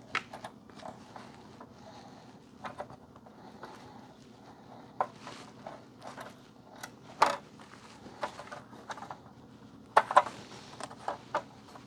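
Scattered light clicks and knocks of a cable tester's circuit board and parts being handled on a workbench during disassembly. The sharpest knocks come about seven seconds in and again around ten seconds in.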